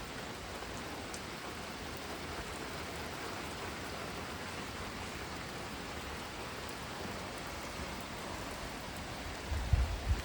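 Heavy pouring rain, a steady even hiss; a low rumble comes in near the end.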